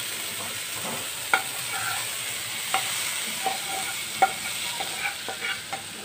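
Chicken pieces sizzling steadily in a little oil in a non-stick frying pan, stirred with a metal utensil. The utensil scrapes and clicks sharply against the pan about five times, some clicks ringing briefly.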